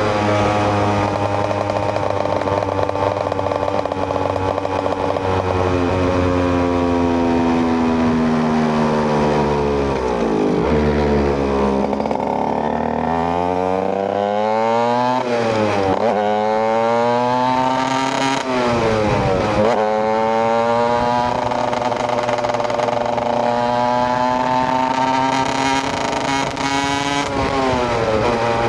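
KTM EXC 125 single-cylinder two-stroke motorcycle engine under way. It holds a steady pitch, then the revs fall away over several seconds. They pick up again in a few quick rising sweeps, each dropping between them, and it then settles back to a steady cruise.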